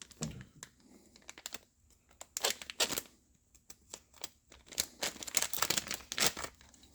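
Packaging crinkling and rustling as it is handled, a run of irregular small crackles and clicks that come in clusters.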